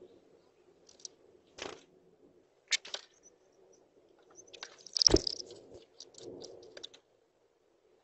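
A chickadee at a birdhouse entrance hole, its feet and bill scratching and tapping on the metal hole guard and wooden front, heard close up. There are scattered sharp clicks and scrapes, with a louder knock-like cluster about five seconds in, over a faint low hum.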